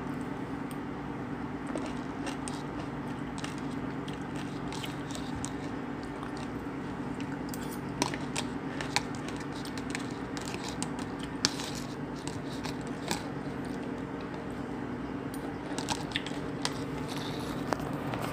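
A person eating fruit: chewing with scattered small clicks and crunches, over a steady low hum.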